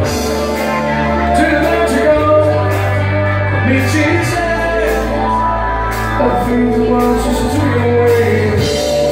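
Live band playing an amplified dance song with a singer and electric guitar over steady bass notes and a regular beat.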